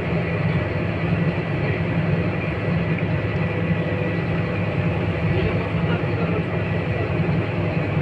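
Scania K230UB city bus heard from inside the passenger cabin while under way: a steady low engine hum with road and body noise over it.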